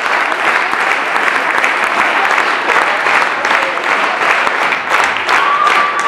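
A large theatre audience applauding steadily and densely. A steady high tone joins near the end.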